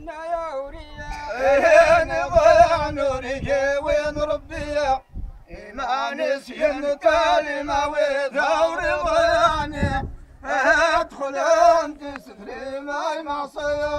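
Male voice singing a drawn-out folk chant with a wavering, ornamented melody, breaking off for breath about five seconds in and again near ten seconds.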